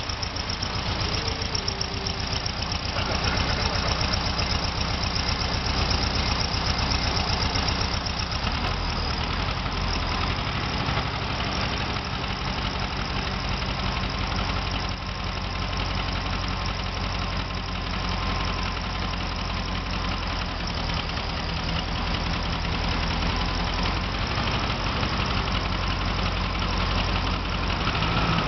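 Volkswagen Karmann Ghia's rear-mounted, air-cooled flat-four engine idling steadily, heard close up at the open engine compartment.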